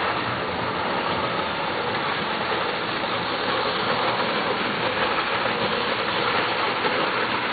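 HO scale model train running along the layout's track, a steady even rolling noise from the wheels and motor.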